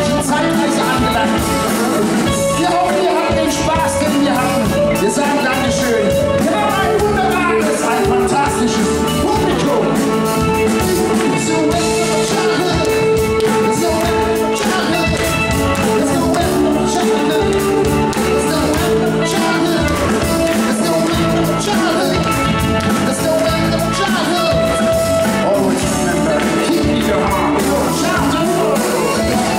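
Live rock band playing at full volume through a PA, with electric guitar, keyboards and drums and a sung vocal over long held notes.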